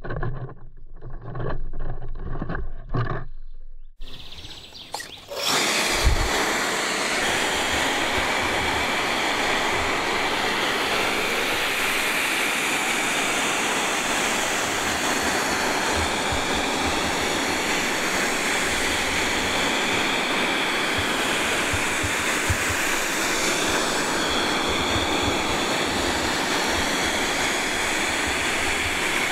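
The twin 3D-printed ducted fans of an RC airboat, driven by 2200 kV brushless motors, give a few short, muffled pulses, then settle about five seconds in into a loud, steady, jet-like rushing roar with a faint high whine as the boat runs across the water.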